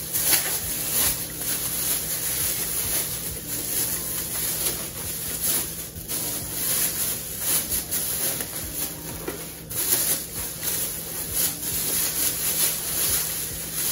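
Clear plastic wrapping crinkling and rustling irregularly as a padded massage-table headrest is worked out of it by hand.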